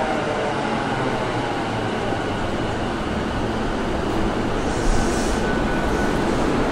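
JR East MUE-Train test electric train running away down the line: a steady rush of wheel and running noise with a faint motor whine that fades out near the end. A brief high hiss about five seconds in.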